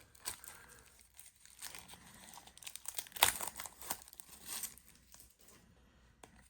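A sealed trading-card pack being torn open by hand, its wrapper crinkling, with the loudest rip about three seconds in.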